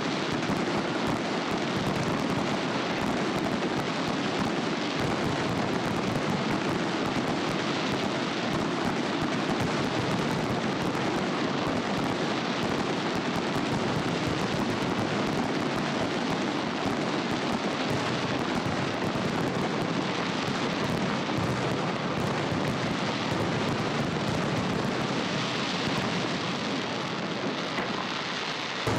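Aerial firework shells bursting in rapid, overlapping succession, merging into a continuous din of bangs and crackling that does not let up.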